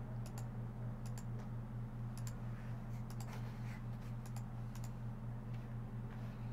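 Scattered sharp clicks of a computer mouse and keyboard being used, about eight to ten of them, over a steady low hum.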